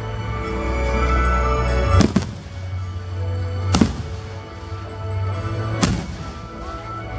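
Fireworks shells bursting three times, about two seconds apart, each a sharp bang with a short echoing tail, over music with a heavy bass.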